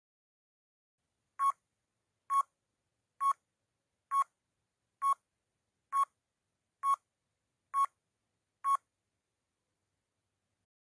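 Countdown timer sound effect: nine short, identical electronic beeps, evenly spaced a little under a second apart, stopping before the count reaches zero.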